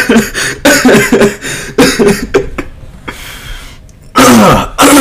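Hard laughter from a young man in short, very loud bursts, distorted and clipping through a microphone boosted to the maximum. There is a long breathy intake about three seconds in and a final loud burst that falls in pitch near the end.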